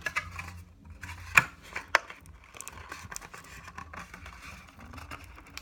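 Hands working packaging: paper and a plastic bag rustling, with scattered small clicks and snaps, the sharpest about a second and a half in, as a small plastic button is picked off the sticky tape that holds it to a card.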